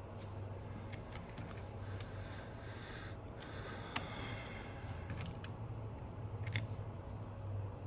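Small clicks and scrapes of hand tools and parts being fitted inside an iPhone 11 during reassembly, with one sharper click about four seconds in. A steady low hum runs underneath.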